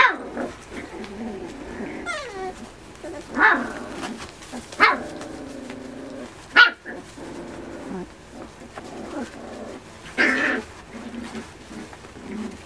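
Miniature Schnauzer puppies play-fighting, giving about five sharp yaps with lower growling and whining in between.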